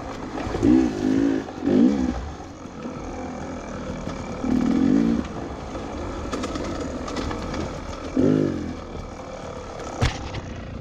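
Beta 300RR's two-stroke engine revved in repeated short bursts, its pitch rising and falling, over a lower running drone. A sharp knock comes near the end.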